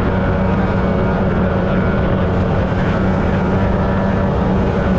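Two-stroke Superjet engine of a mini jet boat running at a steady, high throttle while under way, its pitch held even, with water rushing past the hull.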